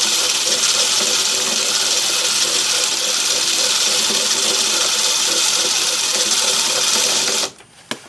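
Myford ML7 lathe running in back gear on a screw-cutting pass, a steady hiss with a regular pulse about three or four times a second, then switched off and stopping suddenly near the end.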